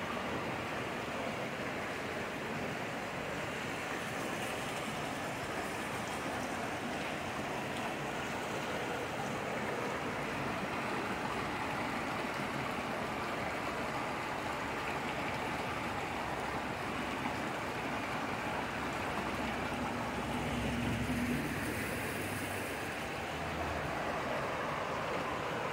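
Shallow mountain creek running over rocks: a steady, even rush of water. About twenty seconds in, a low rumble briefly joins it.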